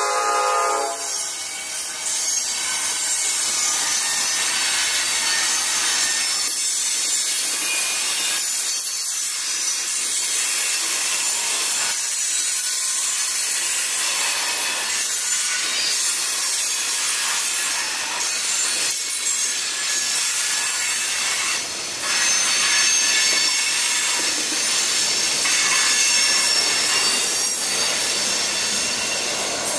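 Freight cars of a Norfolk Southern manifest train rolling past at close range: a steady rush of steel wheels on rail with faint high wheel squeal. A held pitched tone fades out about a second in.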